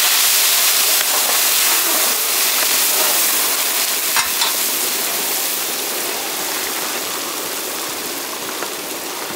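Marinated mutton sizzling hard in hot ghee and oil in a big pot as it is tipped in from a metal plate. The sizzle eases slowly, with a light knock about four seconds in.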